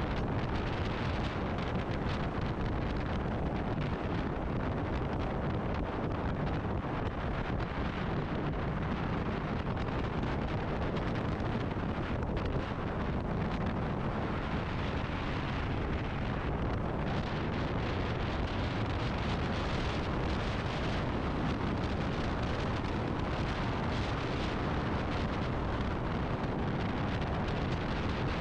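Steady wind rush on the microphone of a motorcycle riding at speed, with the bike's running and road noise beneath it.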